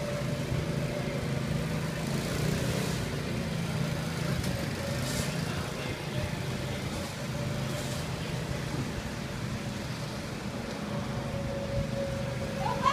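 A go-kart circling the track, its motor running steadily with a continuous hum and one held tone throughout.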